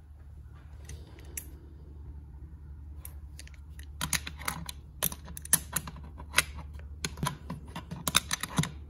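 Quick, irregular metallic clicks and clacks of an adjustable wrench working the fuel inlet nut on a Rochester Quadrajet carburetor body as the nut is tightened. The clicks start about four seconds in and stop just before the end, over a steady low hum.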